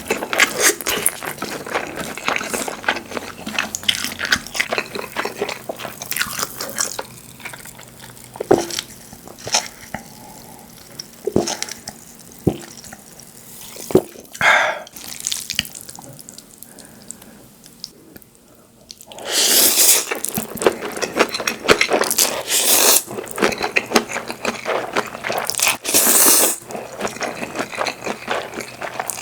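Close-miked eating sounds: wet chewing and lip smacks with many short clicks, easing off briefly past the middle. After that comes a run of louder, denser wet sounds typical of slurping buckwheat noodles.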